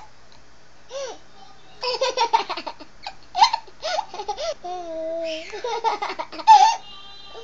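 A baby laughing in fits of short, hiccup-like bursts with pauses between them. About halfway through there is one held high note.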